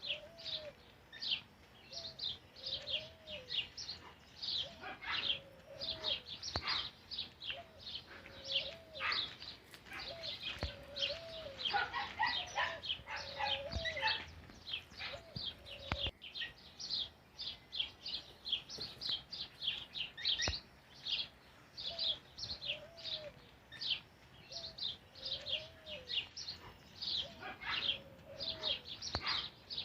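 Birds chirping and singing: a constant stream of short, quick high chirps, with a lower, rising-and-falling call repeated every second or two.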